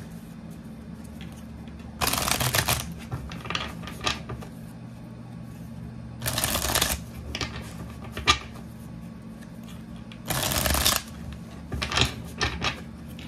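A tarot deck being shuffled by hand: three short bursts of shuffling a few seconds apart, with smaller taps and clicks of cards in between, over a faint steady hum.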